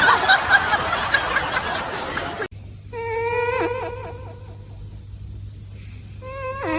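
People laughing, then after a sudden cut a cat or dog gives a long, pitched wailing call that holds steady and then wavers quickly before stopping. The same call starts again near the end.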